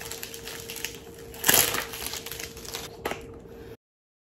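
Paperboard perfume box being handled and opened: rustling and scraping of the card, with one louder scrape about a second and a half in and a sharp click near three seconds. The sound then cuts off abruptly.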